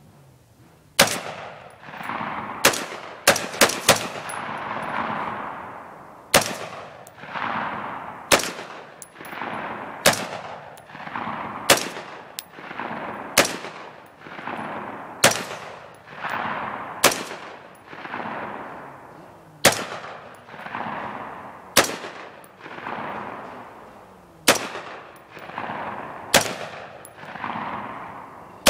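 AR-15 rifle fired in single shots, roughly one every two seconds, with a quick string of four shots a few seconds in. Each crack is followed by a long rolling echo.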